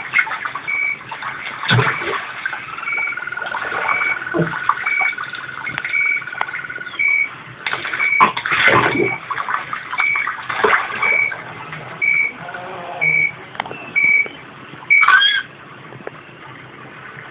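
Animated film soundtrack playing from a TV: a short high chirp repeating about once a second, a long held whistle-like tone for a few seconds near the start, and scattered rustles and soft thumps.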